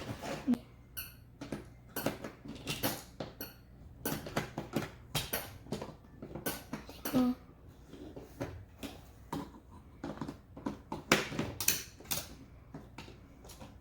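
Small plastic toys clicking and knocking together as they are handled, rummaged through and set down, in irregular bursts of light clatter.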